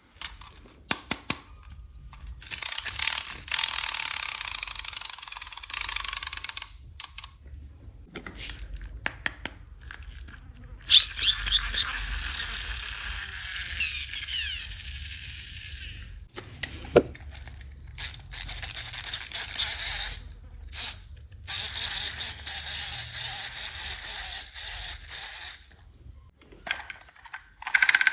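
Plastic toy pieces and packaging being handled: repeated small clicks and ticks, with stretches of crackly, rustling plastic and a few brief squeaks.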